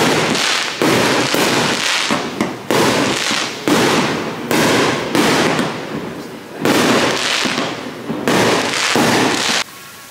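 Fireworks bursting in a rapid series of sharp bangs, roughly one every half second to a second, each trailing off before the next. The bangs stop suddenly near the end.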